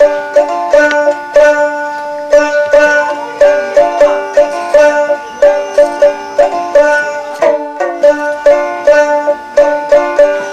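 Background music: a plucked string instrument playing a quick, even run of notes, about three a second, over a steady drone.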